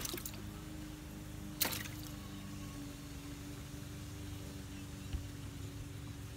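A short splash of water in a small pop-up kiddie pool about a second and a half in, over a faint steady hum.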